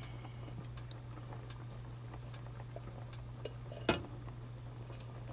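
A metal tin can clinks once against a cooking pot about four seconds in, as condensed cream of chicken soup is emptied from it, with a few faint ticks and a steady low hum underneath.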